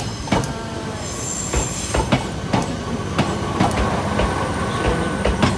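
Fujikyu Railway electric train passing close by, its wheels clacking over rail joints about twice a second. A thin wheel squeal comes and goes over the rumble.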